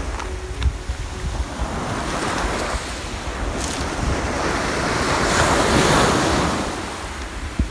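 Sea waves breaking and washing ashore, swelling about two seconds in and again past the middle. Wind buffets the microphone with a low, gusty rumble.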